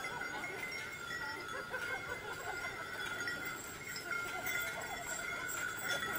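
Sleigh bells on a two-horse team's harness jingling continuously as the horses pull a sleigh through snow.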